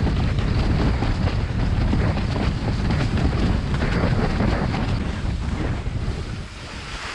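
Strong wind buffeting the microphone while a windsurf board sails at speed in high wind, with water rushing past; the noise eases off a little near the end.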